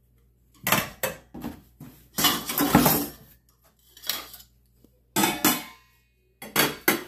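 Glass pot lids with stainless steel rims clinking and rattling against stainless steel pots and pans as they are set in place. There is a string of sharp, ringing clinks, with a longer rattle about two to three seconds in.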